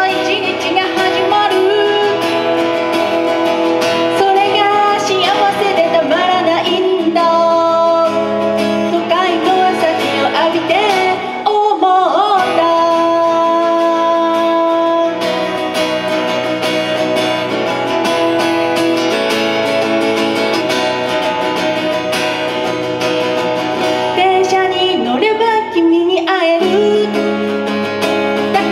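A woman singing live over her own strummed acoustic guitar.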